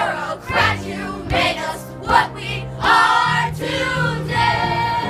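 A group of voices sings a show tune to instrumental accompaniment, moving into a long held note in the second half.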